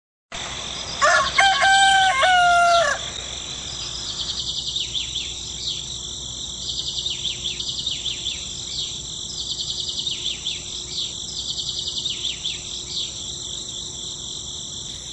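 A rooster crows once, about a second in, and it is the loudest sound. After that a steady high insect drone runs on, with birds chirping over it about once a second.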